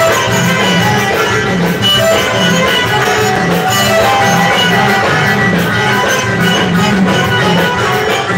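Live Moroccan chaabi band playing amplified dance music, with plucked strings over a steady, driving drum beat.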